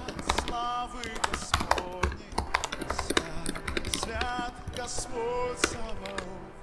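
Computer keyboard typing: a fast, uneven run of keystroke clicks as a chat message is typed, over background music with held melodic notes.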